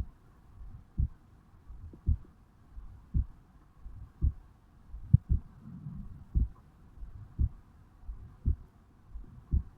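Human heartbeat recorded at the chest over the mitral valve area just after waking: a slow, steady low thump about once a second, some beats heard as a close double.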